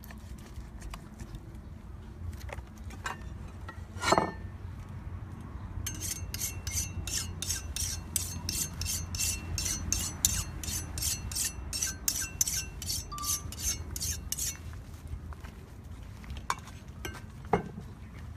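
Kitchen knife being sharpened on a whetstone: quick, even rasping strokes of the blade across the stone, about three a second, starting about six seconds in and stopping some eight seconds later. A single sharp knock comes a couple of seconds before the strokes begin.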